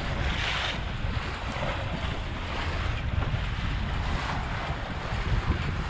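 Wind buffeting the microphone over the rush of sea waves as a sailing yacht moves through the water, with swells of hissing wash about a second in and again around the middle.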